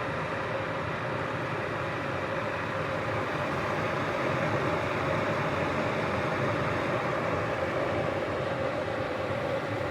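Water boiling hard in a Proctor Silex electric kettle, a steady rushing noise.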